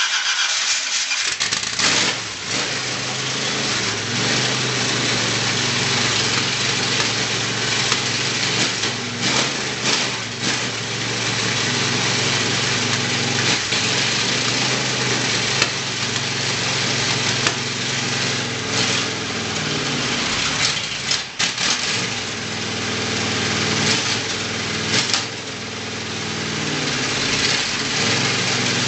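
Ford 460 big-block V8 engine running steadily at idle, its level dipping briefly a few times about two-thirds of the way in.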